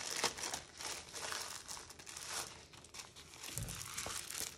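Clear plastic packaging of a diamond painting kit crinkling as it is handled, with a soft low thump about three and a half seconds in.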